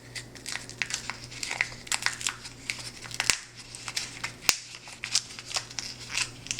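Clear tape and paper crinkling and crackling as a freshly drawn 3D-pen plastic piece is peeled off the taped drawing pad: a run of short crackles, with two sharper clicks about three and four and a half seconds in.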